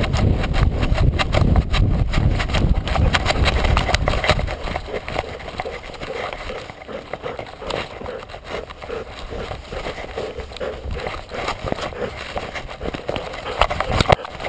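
Wind buffeting and thuds of footfalls on a camera strapped to a golden retriever running full speed over grass. After about four seconds the wind rumble drops away and lighter, quicker rhythmic sounds of the dog moving and the camera jostling remain.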